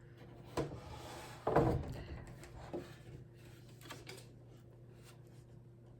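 A clock being handled on a hard surface: a knock, a short rub, a heavier bump about a second and a half in, then a few light clicks.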